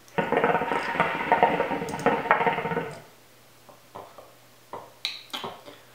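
Shisha (hookah) water bubbling and gurgling for about three seconds as smoke is drawn through the hoses. Then a few short, soft puffs as the smoke is exhaled.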